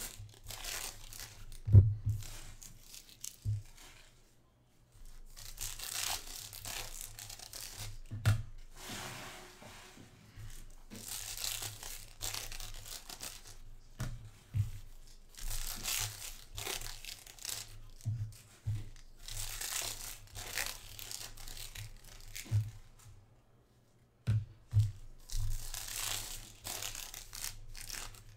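Foil trading-card packs being torn open and crinkled in the hands, with cards rustling and a few sharp low thumps on the table.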